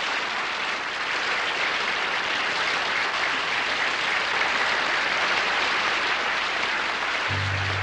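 Studio audience applauding steadily, a dense clapping that holds level throughout. Near the end, low held notes from the band come in underneath.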